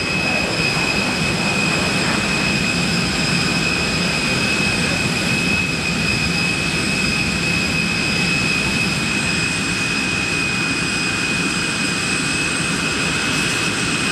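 Boeing 747-400 jet engines running steadily on the ground, a continuous rumble with a steady high-pitched whine over it.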